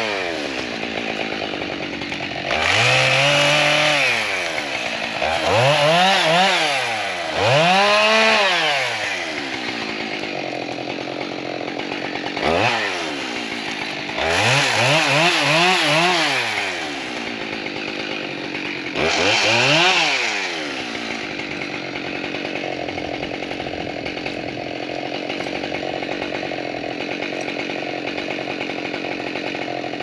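Husqvarna 572XP two-stroke chainsaw revved up in several short bursts, each rising and falling in pitch, with lower running between them. After about 20 seconds it settles to a steady idle.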